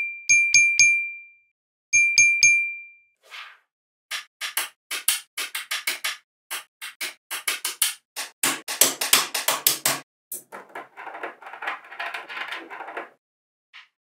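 A quick run of four bright ding-like chimes, then three more. Then small magnetic balls click and snap together, first a few at a time and then in a dense flurry, ending in a rattling shuffle of balls near the end.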